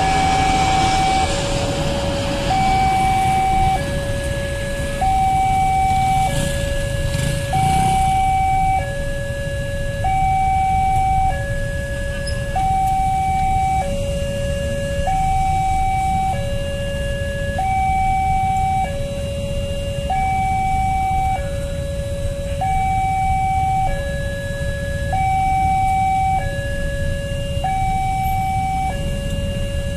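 Railway level-crossing alarm siren of the "Alarm Indonesia" type sounding while the crossing is closed: a steady two-tone hi-lo alarm, alternating between a higher and a lower note about every second and a quarter. Under it is the low rumble of idling cars and motorcycles.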